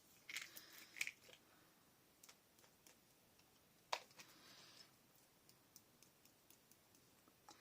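Faint spritzes from a pump-spray bottle of gold shimmer mist: a few short hisses, the longest about four seconds in, with small clicks between them.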